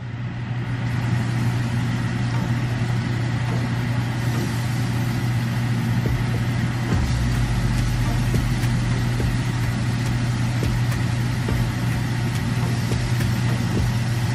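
Kitchen range-hood exhaust fan running: a steady motor hum with rushing air, building to full speed in the first second.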